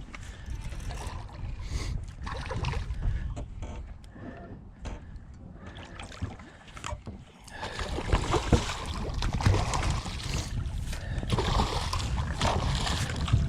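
Water sloshing and splashing against a small fishing boat, with wind rumbling on the microphone. The water noise grows louder about seven and a half seconds in.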